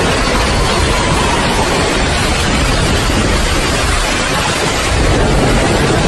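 Steady heavy rain, a dense even hiss with a deep low rumble underneath.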